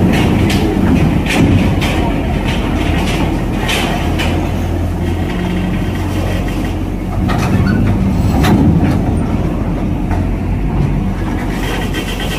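A heavy vehicle's engine running at low revs, with scattered sharp metallic knocks and clanks over the steady engine hum.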